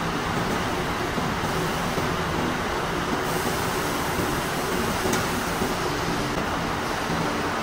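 Textile mill machinery running: a steady, dense mechanical noise like a wide hiss, with a faint low hum underneath.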